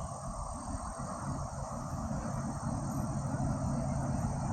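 Steady outdoor ambience: an even, high-pitched insect drone over a low, steady rushing noise.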